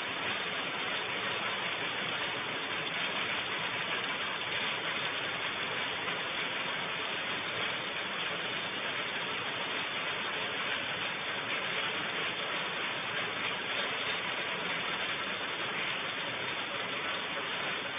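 Steady hiss of rain, picked up through a low-quality security-camera microphone.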